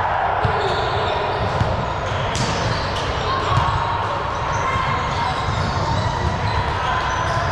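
Balls thudding and bouncing in a large echoing gym, many short knocks over a steady hum of voices and movement.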